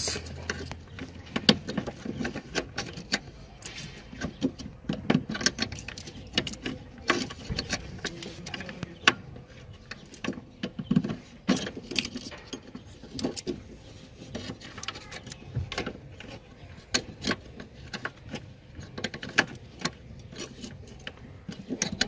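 Irregular small metallic clicks and taps of a nut being worked off by hand from the windscreen wiper motor mounting and linkage, metal parts knocking against each other.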